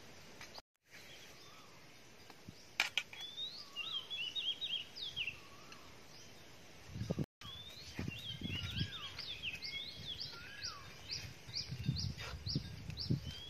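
Small birds chirping and twittering in short rapid calls, with low knocking and handling sounds in the second half. The sound cuts out briefly twice.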